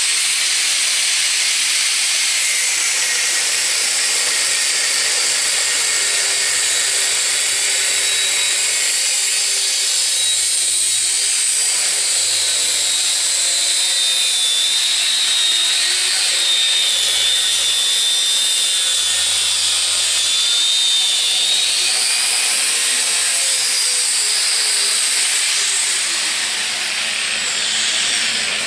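Angle grinder grinding metal: a steady, loud, hissing grind with the motor's whine wavering as it is pressed into the work.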